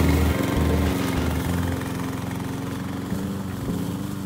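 Small gasoline engine of an Evatech Goat 22T hybrid remote-controlled tracked slope mower running steadily, growing gradually quieter as the mower drives away.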